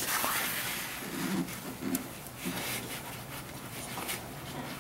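Rustling and rubbing of a hand working through the wiring harness and switch terminals inside a military MEP-004A diesel generator's control panel, with a few light clicks as the wires are wiggled. The connections are being felt for one that is loose, the suspected cause of the engine not cranking.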